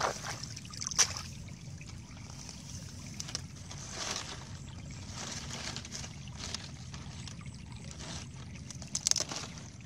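Dry palm fronds and grass rustling and crackling as they are handled, with sharp snaps about a second in and a few more near the end, over water trickling.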